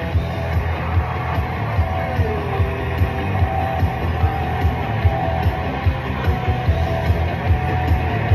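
Rock-style bonus-round music from a Checkered Flag slot machine, with a steady beat of about two beats a second.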